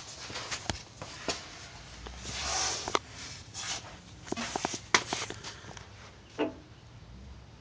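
Floor jack being moved on a concrete floor and set under the car's fuel tank: scattered clicks, knocks and scrapes, with a short rushing scrape about two and a half seconds in and a quick run of clicks near five seconds.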